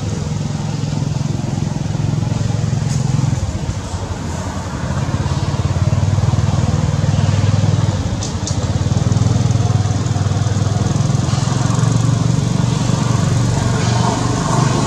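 A motor engine running steadily with a low drone that swells and eases over several seconds.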